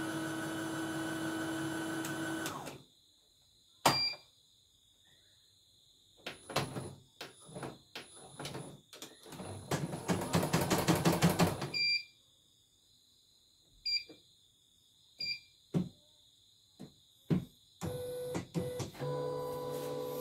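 CNY portable embroidery machine on a test run: a steady motor whine for the first few seconds, scattered clicks and short electronic beeps from its control panel, a burst of fast rattling about ten seconds in, and the whine again near the end. The technician judges it to be running normally.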